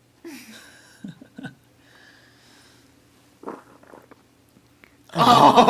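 A baby's small grunts and hiccups, with a short burst of noise about three and a half seconds in as he fills his diaper; an adult starts talking loudly near the end.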